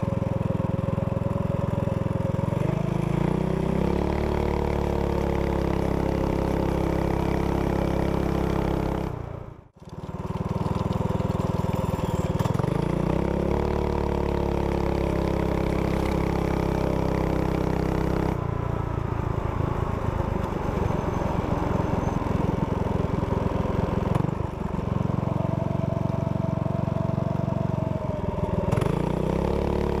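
Predator 212cc single-cylinder engine on a Doodle Bug mini bike, fitted with an aftermarket header and muffler, running under load while riding. It holds a steady note for long stretches, with the pitch climbing several times as it picks up speed, and the sound briefly drops out about ten seconds in.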